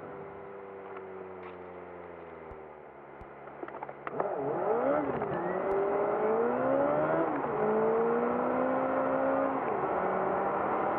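Car engine and road noise, played back at triple speed: the engine note falls as the car slows, then rises as it pulls away from a traffic light, dropping back twice as the gears change up.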